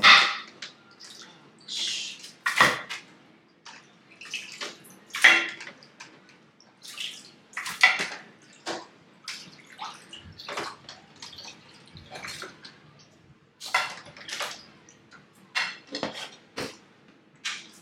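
Raw goat meat being rinsed and handled in water: irregular splashes and sloshing with the odd knock of a dish.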